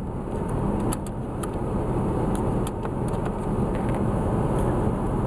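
Steady running hum of the Chevy Astro van heard inside the cabin, with a few faint light clicks as the bulb socket behind the A/C control panel is turned.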